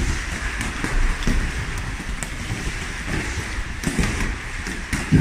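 Boxing gloves hitting heavy punching bags, several boxers working at once: an irregular patter of thuds and slaps.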